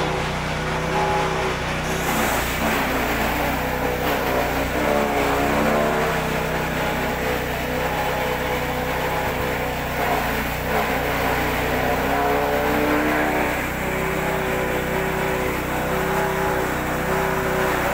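A small engine running steadily, its pitch wavering slightly.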